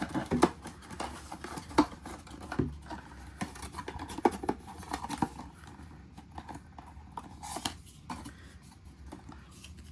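Scattered small clicks and taps of hands handling a plastic collectible figure and its packaging, busier in the first half and sparser toward the end.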